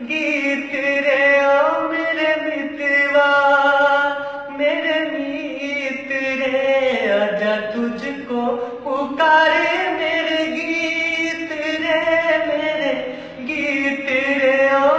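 A man singing unaccompanied in long, drawn-out notes with a wavering vibrato, sliding down and back up in pitch about halfway through.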